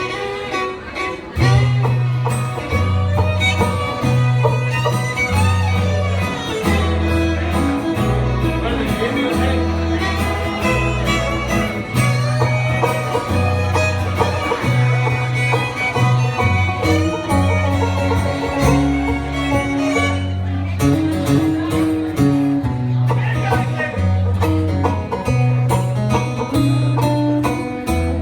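Bluegrass band playing an instrumental break, with fiddle, banjo and guitar over a bass that alternates between two low notes in a steady beat.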